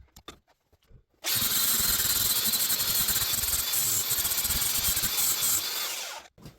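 A handheld electric power tool working on wood or metal, running for about five seconds after a few faint taps, then cutting off suddenly.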